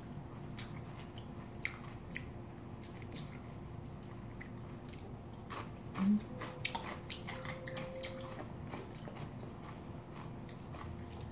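Close-miked eating: biting and chewing of cold noodles and kimchi, with sparse sharp clicks of chopsticks and a spoon against a glass bowl, and one brief louder low sound about six seconds in.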